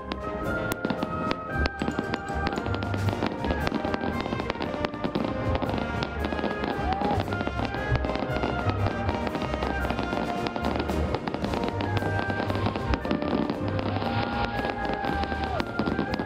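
Fireworks display going off with many rapid pops and crackles, heard together with music playing alongside the show.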